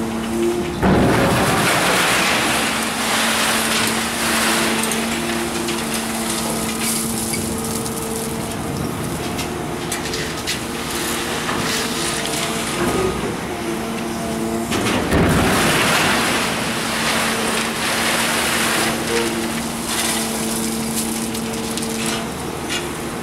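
Kobelco hydraulic excavator's diesel engine running with a steady hum while its steel bucket digs gravel out of an open-top steel gondola rail car. Two loud rushes of rock scraping and sliding against the steel, about a second in and again about fifteen seconds in.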